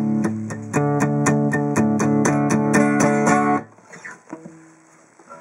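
Martin SWDGT solid-wood dreadnought acoustic guitar strummed in quick, even strokes, about four a second. The strumming stops about three and a half seconds in, and the last chord fades away.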